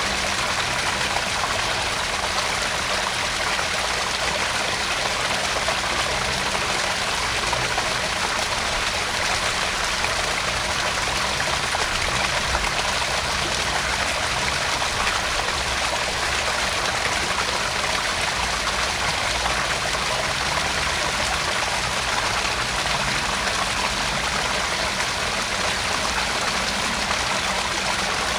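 Small garden-pond waterfall: water spilling and trickling steadily into the pond.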